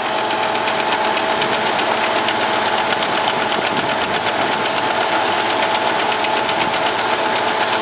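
Engine-driven shingle mill running steadily with its belts turning, a steady whine over a fast, even mechanical chatter.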